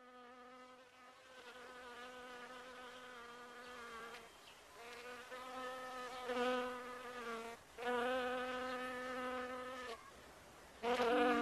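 A flying insect buzzing, a wavering hum in bouts of a few seconds that swell and fade, with short breaks. Near the end, background music starts.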